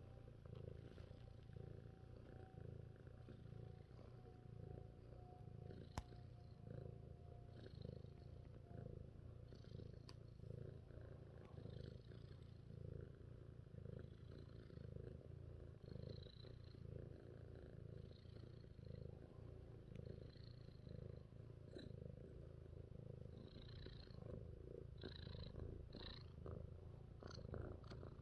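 A domestic cat purring steadily and faintly, a low rumble that swells and fades about once a second; a contented purr while being stroked on the head.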